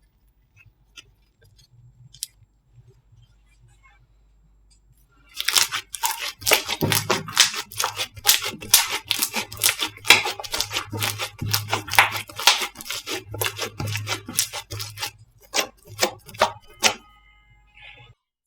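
Slime being handled for ASMR: a dense, irregular run of crackling and popping clicks starts about five seconds in and stops near the end. Before it there are only a few faint clicks.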